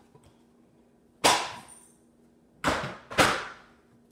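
Three sharp knocks, the second and third close together, each trailing off in a brief rustle: a plastic-and-cardboard Nerf dart refill box being handled and knocked against a tabletop.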